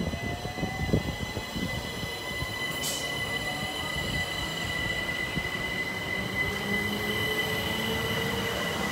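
Southeastern Electrostar electric multiple unit running past and pulling away, its traction motors whining in pitch lines that slowly rise as it gathers speed, over a steady high whine. There are a few wheel knocks in the first second and a brief hiss about three seconds in.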